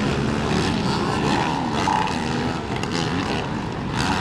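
Several motocross race engines running and revving on the track, a loud continuous drone whose pitch rises and falls.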